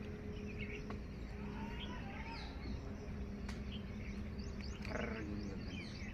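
Small birds chirping in short, scattered rising and falling calls over a steady low hum.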